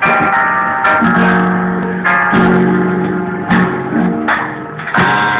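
Guitar playing slow strummed chords, a stroke about once a second, each chord ringing out and fading before the next.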